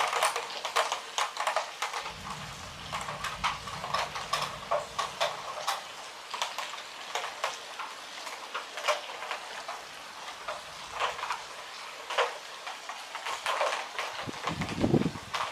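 Rain during a night thunderstorm: a steady hiss with dense, irregular drops tapping close by. A faint low rumble runs for a few seconds near the start, and a short low swell comes near the end.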